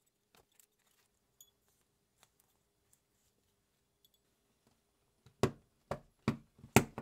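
A 608 ball bearing being pressed by hand into a 3D-printed plastic gear: faint handling ticks, then four sharp plastic clicks in the last second and a half as it is pushed into the gear's hub.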